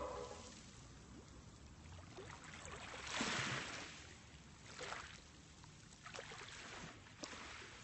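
Faint splashing and trickling of water as a kayak paddle dips in, a few separate strokes with the loudest about three seconds in.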